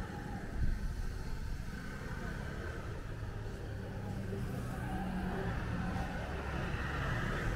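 Street ambience with car traffic passing: a steady low rumble of engines and tyres.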